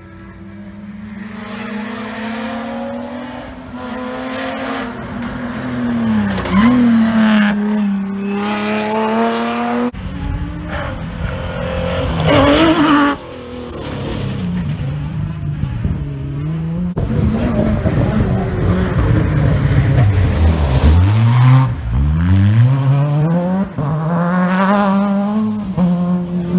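Rally cars on a loose dirt and gravel stage, engines revving hard and changing gear as each car passes, pitch climbing and then dropping again and again, with a few sudden cuts between separate passes.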